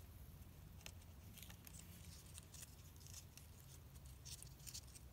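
Near silence with faint, scattered little ticks and rustles of glued paper-strip loops being pressed and handled between fingers.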